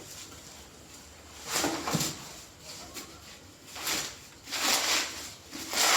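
Helmet packaging being pulled open and rustling, in about four short bursts.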